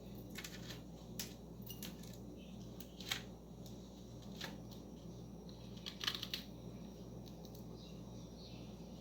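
Cockatiel eating, its beak cracking seeds in a scatter of sharp clicks, with a cluster about six seconds in, over a steady low hum.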